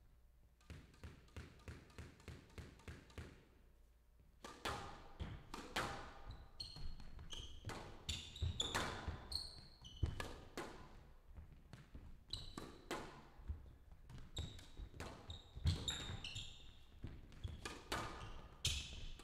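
Squash rally: the ball cracking off rackets and walls, mixed with short high squeaks of players' shoes on the court floor. In the first three seconds a quick, even run of light taps, the ball being bounced before the serve; the rally starts about four seconds in.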